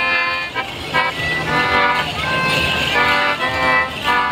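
A Morris dance tune played on a squeezebox, in held reedy notes that change every half second or so.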